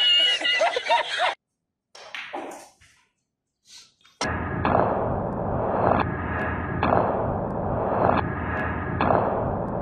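A man's high, wild laughter cuts off about a second in. After a near-silent gap, a snooker shot follows: a sharp cue strike, then several sharp clicks of balls colliding over steady background noise.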